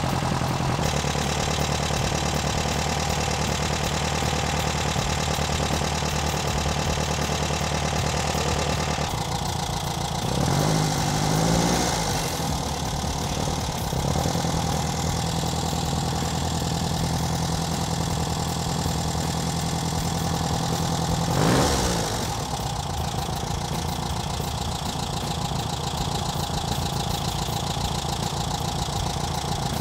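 Air-cooled VW Beetle flat-four engine idling while its ignition timing and carburetor idle are being set on a newly fitted SVDA distributor. The running note shifts about nine seconds in, with short louder surges about eleven and twenty-two seconds in.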